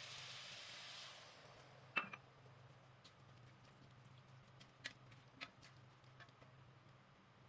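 Stir-fry of tofu and vegetables sizzling in the pan, fading away during the first second. A few sharp, light clicks follow: the loudest about two seconds in, then two more at around five seconds.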